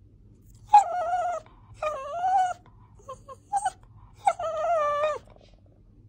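A small dog whining in a series of drawn-out, wavering cries: three long ones with a few short ones between, the last falling in pitch at its end.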